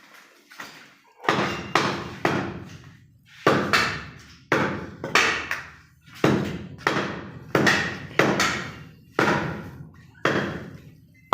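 Butcher's cleaver chopping through goat leg meat and bone: a run of sharp, heavy chops, about one to two a second, starting a little over a second in, each dying away quickly.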